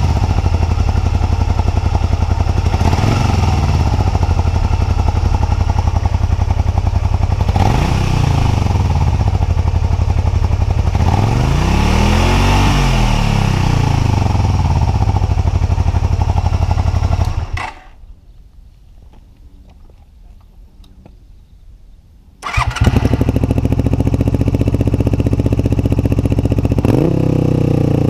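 Honda VTR250's V-twin idling through its stock muffler, with three throttle blips that rise and fall, the longest about halfway through. It cuts off abruptly about 17 seconds in. After a few quieter seconds the engine is heard again, now through an aftermarket LCI short stainless muffler with its baffle fitted, with another blip near the end.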